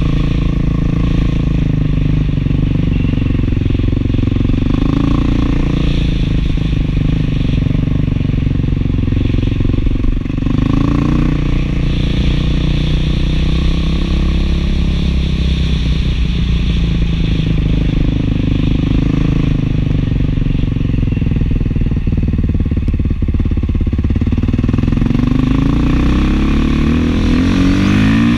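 Beta 500 dual-sport motorcycle's single-cylinder four-stroke engine running through a new FMF 4.1 muffler, pulling steadily under load with its pitch shifting with the throttle. Near the end it revs up in a long rising sweep.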